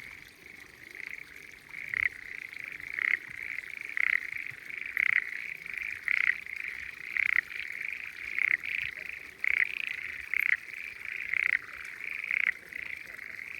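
Chorus of frogs calling in the rice paddies: a steady massed chorus, with one louder frog standing out about once a second.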